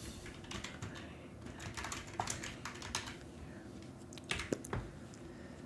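Computer keyboard typing: a run of faint, irregular key clicks, with a few louder clicks about four and a half seconds in.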